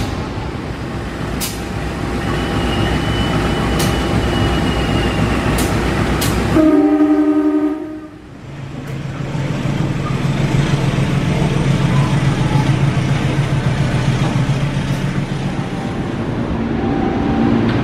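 Train locomotive horn sounding one blast of about a second, several tones at once, amid the steady noise of a train running on the rails; after the horn the train noise dips briefly and builds again with a low steady hum.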